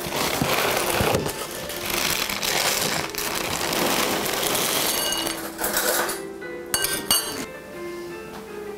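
Plastic cereal bag rustling and dry cereal rattling as it is poured into a bowl, over background music. A few sharp clinks follow near the end.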